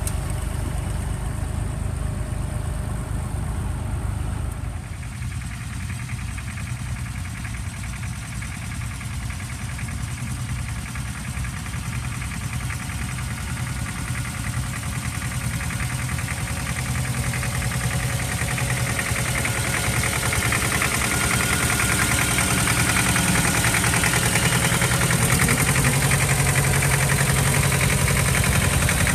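Vintage farm tractor engines running steadily under load while ploughing. About five seconds in, the sound drops abruptly and a second tractor's engine takes over, getting steadily louder as it comes close and passes.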